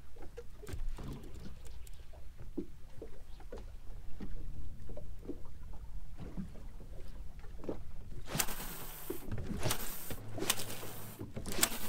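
Small waves lapping and slapping against the hull of a drifting boat over a low wind rumble. About eight seconds in, louder bursts of hiss come and go.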